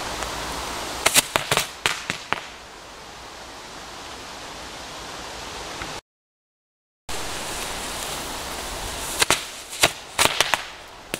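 Zabki firecrackers going off: a steady hiss, then a quick string of about half a dozen sharp cracks. After a brief cut to dead silence, a second round plays out the same way, with a steady hiss and then another rapid run of cracks.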